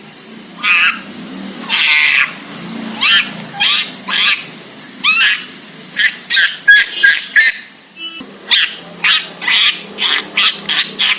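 A student imitating a monkey's calls with the voice: short, high-pitched cries that bend in pitch. They are spaced out at first, then become a quicker run of about three calls a second over the last few seconds.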